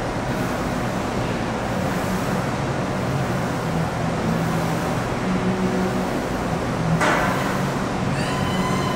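Steady background noise of a busy weight room, with one sharp metallic clank of gym equipment about seven seconds in, followed by brief ringing.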